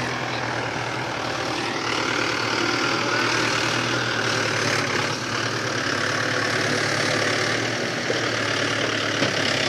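Mahindra 415 DI tractor's four-cylinder diesel engine running steadily.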